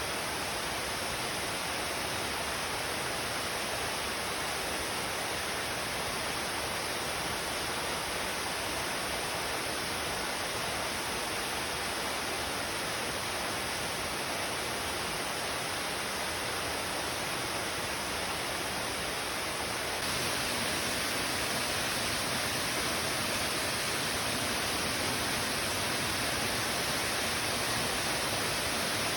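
Waterfall rushing in a steady, even hiss of falling water, with no breaks. It gets slightly louder about two-thirds of the way through.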